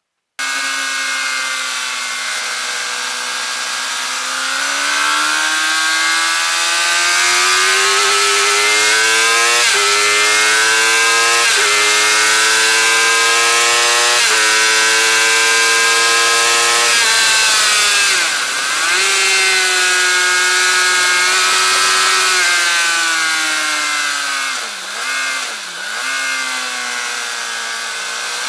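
Suzuki GSX-R 750 K8's inline-four engine pulling hard on track, the pitch climbing through the revs and dropping back at three quick upshifts. The pitch falls as the throttle comes off, then dips briefly twice near the end. Loud rushing wind noise runs underneath throughout.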